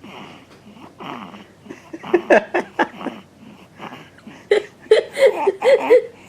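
A sleeper snoring: soft breathy snores at first, then two runs of louder, rough, short snores with a wavering pitch, about two seconds in and again from about four and a half seconds.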